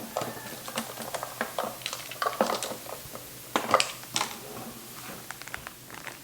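Kitchen utensils and dishes clattering: a run of irregular clinks and knocks, loudest a little after three and a half seconds in.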